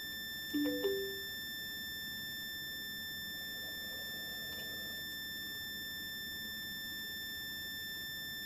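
Portable CD player giving a short three-note electronic chime about half a second in as it switches into CD mode. A steady high-pitched electronic whine runs underneath throughout.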